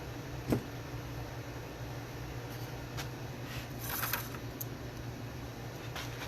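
Quiet workbench handling of small electronic parts during soldering: a sharp click about half a second in, a brief hissing rustle around four seconds, and a few faint ticks, over a steady low hum.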